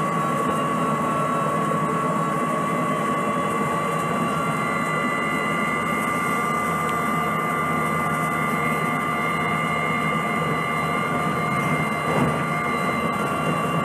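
Cummins C Gas Plus natural-gas engine of a 2006 Orion VII CNG transit bus idling at a stop, a steady engine hum with a steady high whine over it.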